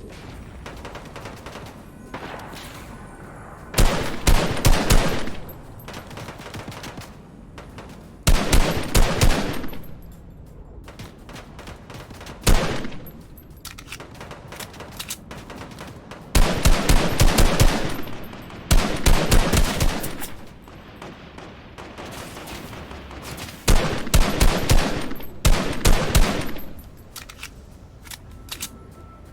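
Automatic gunfire in a first-person shooter video game: bursts of rapid shots coming every few seconds, some short and some lasting a second or two.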